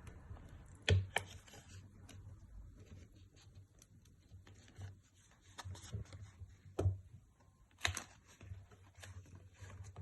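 Light clicks, taps and scraping of small repair tools working on an iPhone XR, plausibly a plastic card prying out its glued battery. Sharp clicks sound about a second in and again twice near the end.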